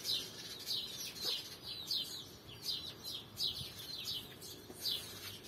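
Chicks peeping: a steady run of short, high, falling peeps, about two or three a second.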